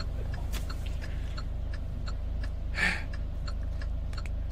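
Steady low hum inside a car's cabin with the engine running, and faint regular ticking about three times a second. A short breath comes just under three seconds in.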